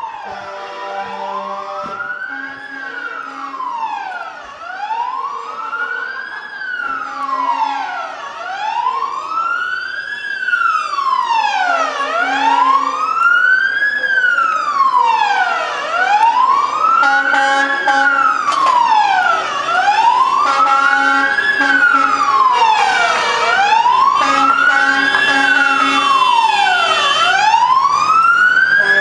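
Fire engine siren wailing, its pitch rising and falling in a steady cycle about every two and a half seconds, growing louder as the truck approaches.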